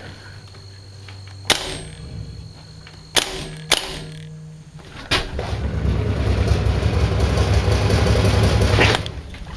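Four sharp single cracks spread over about five seconds, typical of airsoft guns firing single shots. After the last crack comes about four seconds of loud, steady, low rumbling noise that stops suddenly.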